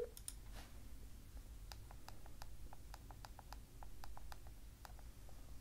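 Faint, irregular clicking heard over a phone line while the call is on hold for a transfer: about twenty quick clicks in a few seconds.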